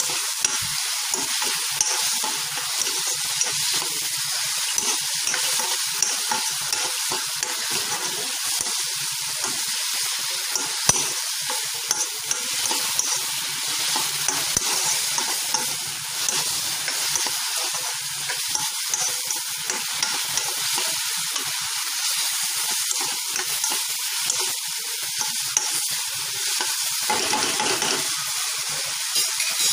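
Chopped onion and tomato masala sizzling in hot oil in a kadhai, a steady frying hiss. A spoon stirs it, scraping and clicking against the pan.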